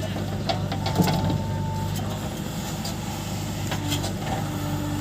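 Diesel engine of a backhoe loader at work, running steadily, with a few short knocks, the loudest about a second in.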